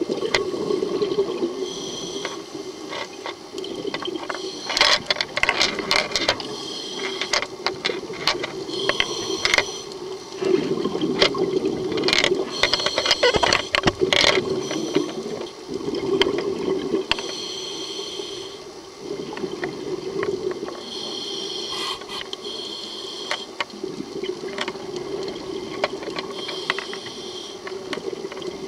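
Scuba regulator breathing underwater: hissing inhalations every few seconds alternating with crackling rushes of exhaled bubbles, over a steady low hum.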